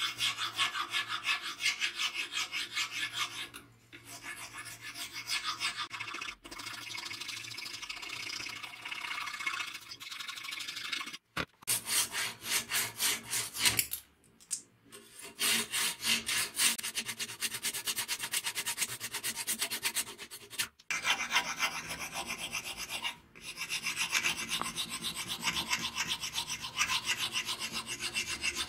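Hand file rasping back and forth across the riveted grip of a sword in quick repeated strokes, with a few brief pauses.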